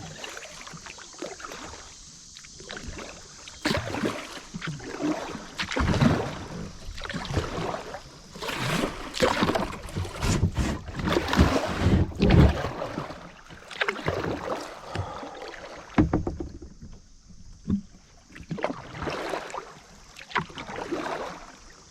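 Kayak paddle strokes dipping and splashing in shallow creek water, in an irregular rhythm. They are loudest about halfway through and quieter near the end.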